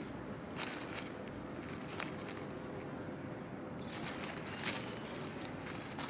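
Close rustling and light crackling in low vegetation, with a few sharp crackles about half a second, two seconds and four and a half seconds in, over a steady outdoor hiss.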